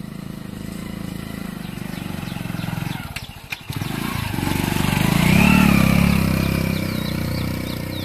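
Small single-cylinder Hero motorcycle engine running as the bike rides past close by, loudest about five and a half seconds in, its pitch rising and falling as it passes. A brief drop a little after three seconds.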